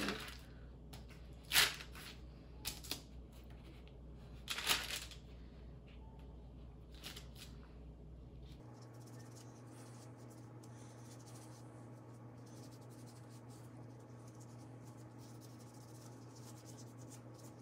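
Gloved hands handling paper and a small foil alcohol-wipe packet: a few short crinkles and tearing rustles over the first seven seconds, then only faint, steady room hum.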